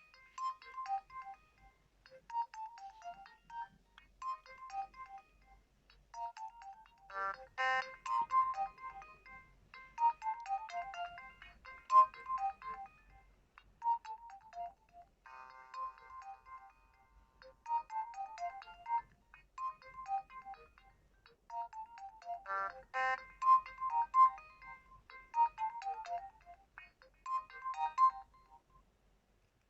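Nokia 2630 mobile phone playing one of its built-in ringtones: a short electronic melody in quick phrases with a sharp accent partway through each run. The whole tune plays about twice and stops just before the end.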